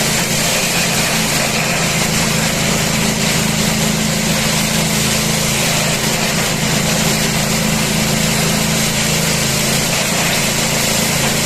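Multipurpose grass chopper machine running steadily at speed, a constant loud motor hum with a dense whirring noise from the spinning blades.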